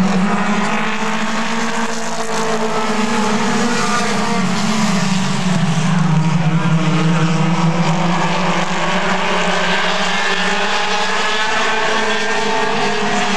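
A pack of mini stock race cars running at racing speed on the oval, their four-cylinder engines overlapping, with the pitch rising and falling as the cars accelerate and ease off.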